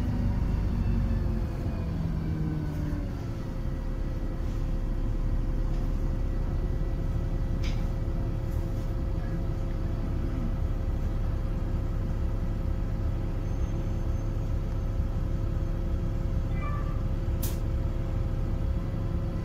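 City bus heard from inside the cabin: the engine's running note falls as the bus slows in the first few seconds, then holds a steady low rumble while it waits. Two short clicks sound about ten seconds apart.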